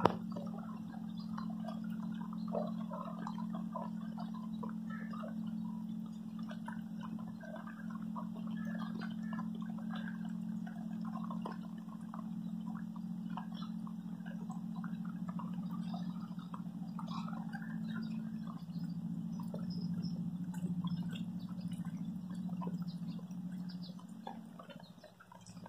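Shallow floodwater splashing and dripping with wading footsteps, over a steady low hum. A single sharp click comes right at the start.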